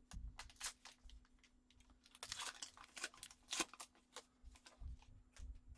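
Trading cards being handled and flipped through: faint rustling and crinkling with light irregular clicks, busiest from about two to four seconds in.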